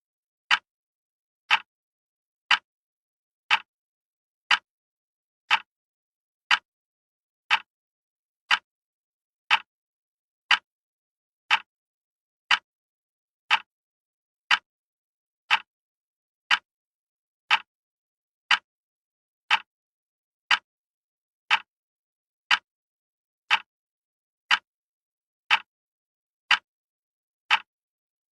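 Wall clock ticking steadily, one crisp tick about every second with silence between ticks.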